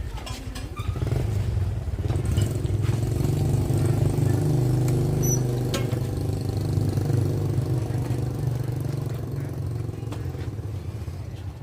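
Motorcycle engine running steadily, fading toward the end.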